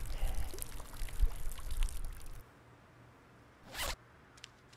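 Cartoon sound effects: a crackly rustling scrape, like something being unzipped or poured, for about two and a half seconds, then a single short swish near the end.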